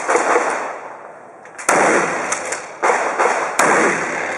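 Shotgun being fired in a practical shooting stage: four sharp shots, coming closer together toward the end, each trailing off over about a second.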